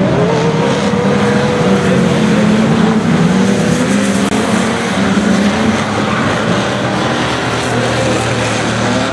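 Engines of several banger-racing stock cars running as they circle the oval track, with wavering engine tones over a steady noise.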